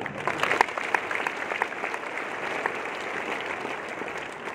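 Audience applauding, beginning suddenly, strongest in the first second or so and tapering off near the end.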